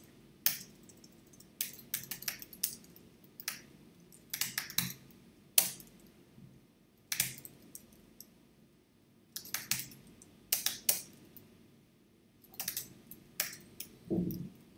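Typing on a computer keyboard: irregular runs of keystroke clicks with short pauses between words.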